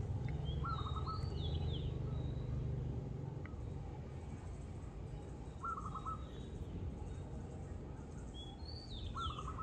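Outdoor birdsong: one bird gives a short trilled call three times, about five seconds apart, and another gives higher, falling calls twice. A low steady hum runs underneath for the first three seconds.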